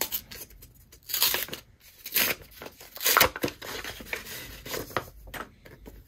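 Paper envelope being torn open and its cards pulled out: a few short bursts of paper tearing and rustling, the strongest about one, two and three seconds in, then softer rustles.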